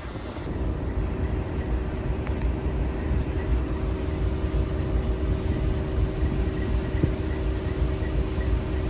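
Steady low engine rumble with a faint steady hum, rising in level about a third of a second in.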